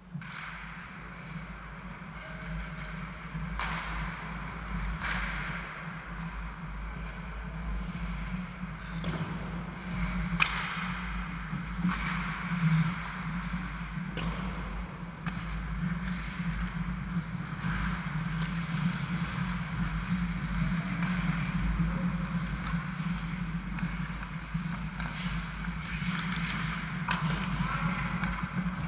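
Ice hockey play in a rink: skates scraping the ice and scattered sharp clacks of sticks and puck, over a steady low hum, with the sounds growing busier near the end.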